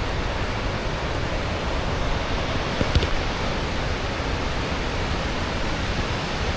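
Steady rush of the large Krka waterfall, falling water heard close, with a brief click about three seconds in.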